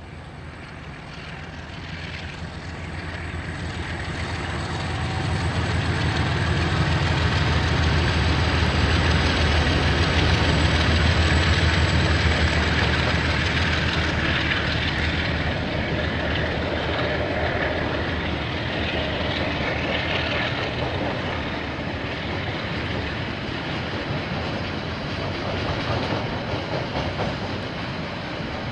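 KiwiRail diesel train passing: the locomotive's engine hum grows over the first several seconds and peaks, then the wagons keep rolling by with steady wheel-on-rail noise.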